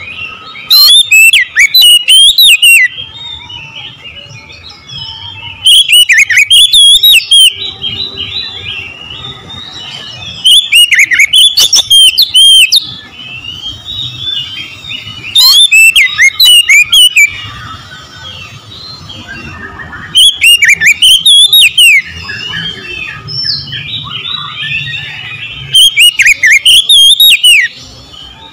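Oriental magpie-robin singing in full voice: six loud bursts of rapid whistled warbling and trills, each about two seconds long and coming about every five seconds, with softer chirping and twittering between them.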